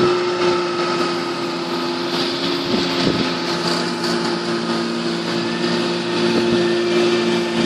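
John Deere tractor's diesel engine running steadily while pulling a plough, its pitch holding even.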